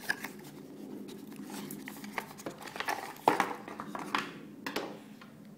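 Hands rummaging in a cardboard box with its packing inserts: light rustling with scattered taps and knocks, the sharpest knock about three seconds in.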